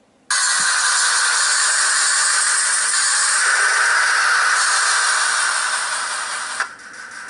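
Loud, steady rushing noise with no tones, played back through computer speakers from the video on screen; it cuts in suddenly, drops sharply about six and a half seconds in, then returns with a fast flutter.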